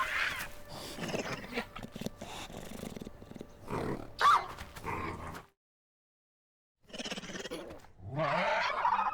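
Designed velociraptor creature vocals: a run of growls and grunts with a short, loud high shriek about four seconds in, a pause of silence, then another growling call near the end.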